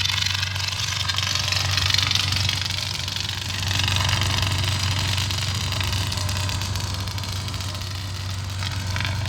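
Kylo Ren's unstable crossguard lightsaber idling: a steady low hum under a rough, crackling hiss that swells and fades.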